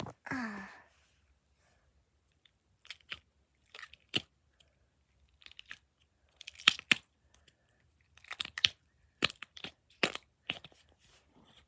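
Slime worked close to the microphone for an ASMR-style 'satisfying' sound: scattered crackly pops and clicks, coming in small clusters every second or so, with a short falling squeak just after the start.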